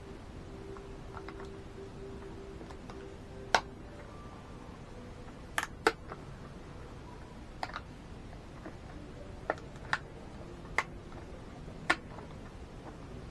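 About eight sharp, irregularly spaced clicks, the kind made by handling small hard plastic or metal parts or pressing keys, over a faint steady hum.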